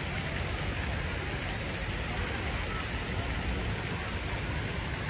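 Steady outdoor city ambience: an even wash of noise with a low rumble and no distinct events.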